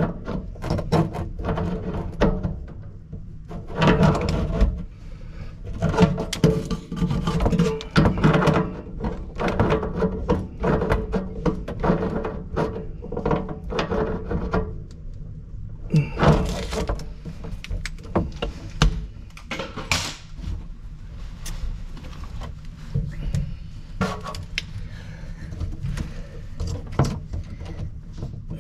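Irregular knocks, clunks and rattles as hands work braided faucet supply hoses and fittings in the cabinet under a kitchen sink.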